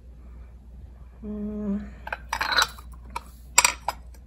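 Glass dishes being handled, with two clattering clinks of glass on glass about two and three and a half seconds in, the second the louder. Just over a second in there is a brief low steady tone.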